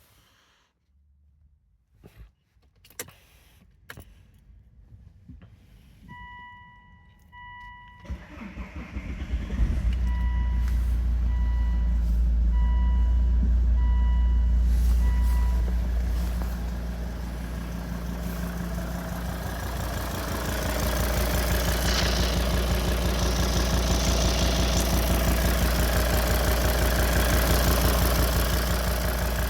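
A few clicks, then a dashboard warning chime beeping repeatedly while a Volvo D5 five-cylinder turbodiesel cranks for about two seconds, catches and settles into a steady idle. The idle carries a tick that the owner wonders is lifter tick.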